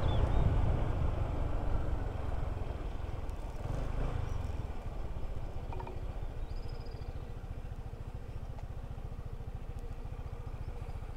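Motorcycle engine running with wind on the microphone. The wind eases after the first few seconds, leaving a steady low engine pulse. A bird chirps briefly a couple of times.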